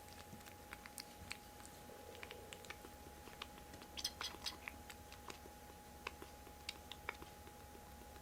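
Kittens chewing: soft, irregular small clicks, with a brief flurry about four seconds in.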